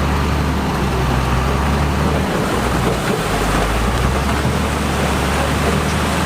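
Diesel engine of heavy earthmoving machinery running steadily, over a dense grinding, rattling noise. The engine's low hum drops away for about a second partway through, then comes back.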